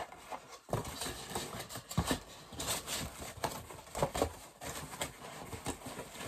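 Boxes and packaged items being handled and moved around: irregular rustling and scraping with scattered knocks and thumps.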